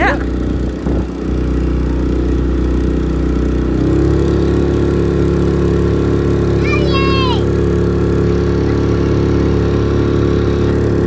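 Motorboat engine running steadily, its note shifting slightly about four seconds in.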